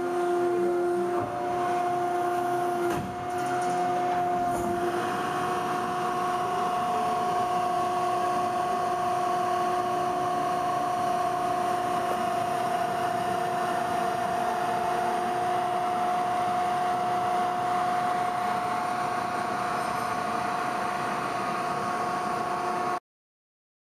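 Hydraulic power unit of a Horn Metric 100TSR CNC tube bender running, a steady whine of several constant tones over a hum, with a brief dip about three seconds in.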